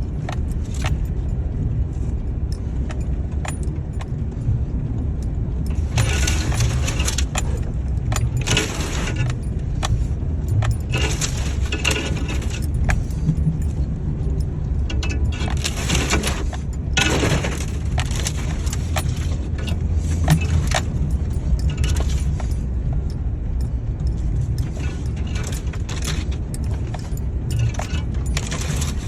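Vehicle cabin noise while driving: a steady low rumble, with frequent irregular bursts of metallic jingling and rattling over it.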